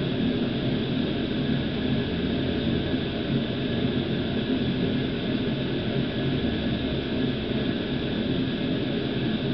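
A steady mechanical hum with hiss, unchanging throughout.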